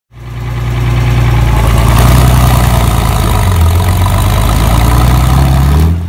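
A loud engine running steadily, its pitch rising slightly near the end.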